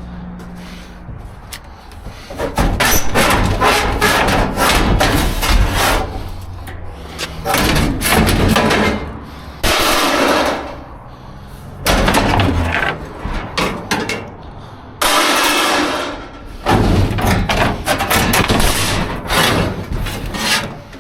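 Clattering, scraping and banging of scrap and junk being shifted around in a dumpster, in loud bursts of knocks with short pauses between.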